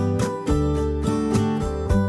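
Background music: acoustic guitar strumming chords with a steady rhythm.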